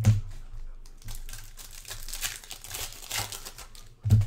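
Foil wrappers of 2022 Bowman baseball card packs crinkling and tearing as they are handled and opened, with two dull thumps, one at the start and one about four seconds in.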